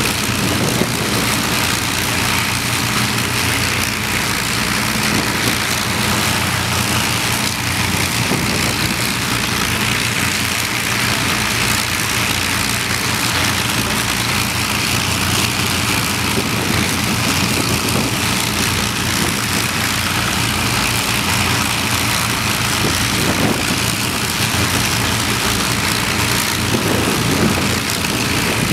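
Avro Lancaster's four Rolls-Royce Merlin V12 engines idling steadily on the ground, a deep, even propeller-engine drone.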